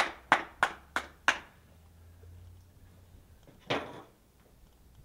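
Hand claps at about three a second that stop a little over a second in. About three and a half seconds in, a single clack and short scrape as the skateboard is tipped up onto its tail on the paving.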